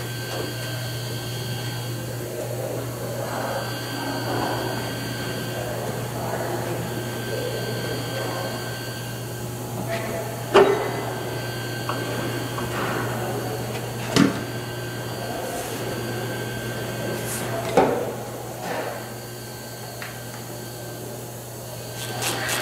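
A large truck engine air filter element handled and pushed into its plastic air cleaner housing, with three short sharp knocks about ten, fourteen and eighteen seconds in, over a steady low hum.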